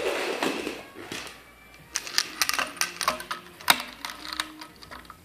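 Handling noise: a short rustle, then from about two seconds in a quick run of light metallic clicks and clinks with brief ringing, as the jig's metal pipe fittings and parts are handled.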